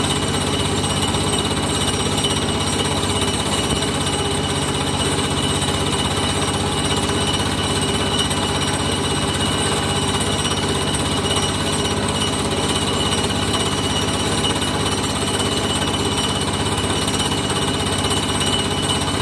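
A machine running steadily and loudly with a fast, even rattling pulse that does not change.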